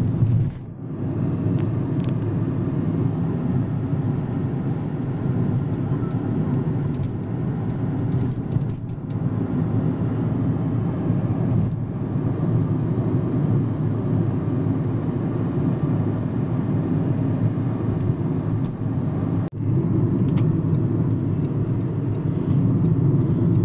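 A car driving along a road: a steady low rumble of engine and tyre noise, which dips out briefly twice.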